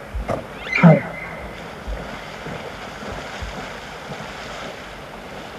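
Elk wading and splashing through a river with steady water noise, and a short falling call about a second in.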